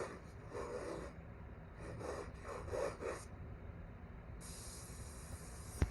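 A person coughing hard in two short fits of several quick coughs each. A steady high hiss follows in the last second and a half.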